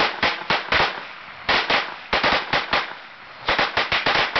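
A string of firecrackers going off: rapid, irregular sharp cracks in about four quick clusters with short gaps between them.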